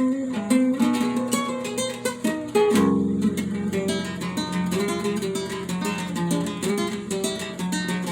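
Acoustic guitar playing, quick plucked and strummed notes, with no singing.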